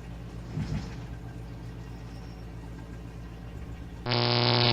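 A steady low electrical hum, with a brief soft sound about a second in. Near the end a loud, harsh electronic buzz with many overtones starts abruptly, a glitch-like tone.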